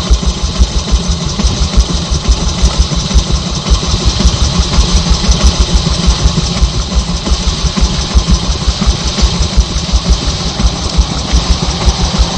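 A vehicle engine idling close by: a steady, evenly pulsing low rumble.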